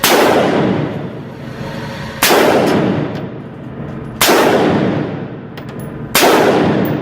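AR-15 rifle fired four times in slow succession, about two seconds apart, each shot followed by a long fading echo.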